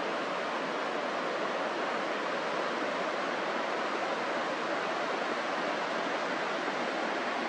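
Steady rush of a river's flowing water, an even, unbroken noise.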